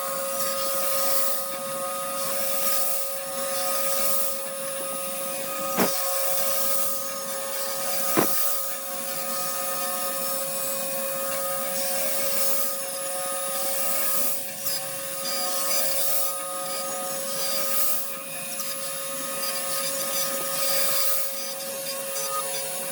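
CNC router cutting 8 mm PVC sheet: a steady spindle whine over the hiss of the bit working the plastic, with a couple of sharp clicks.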